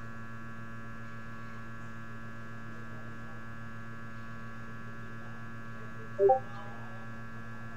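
Hot air rework station's blower running with a steady, even hum while heat-shrink tubing is shrunk over the repaired adapter cable. A brief short sound comes through about six seconds in.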